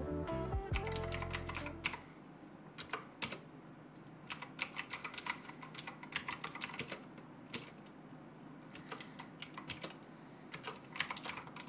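Typing on a Royal Kludge RK61 60% mechanical keyboard: keys clicking in quick bursts with short pauses. Background music fades out in the first two seconds.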